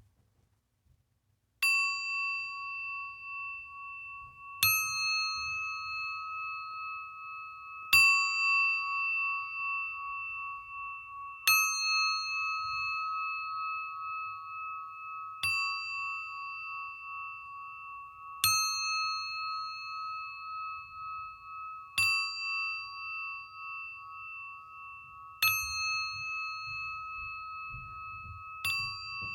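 Singing bowl struck with a mallet about every three to four seconds, nine strikes in all, the first coming near two seconds in. Each strike starts a clear, wavering ring that is still sounding when the next one lands.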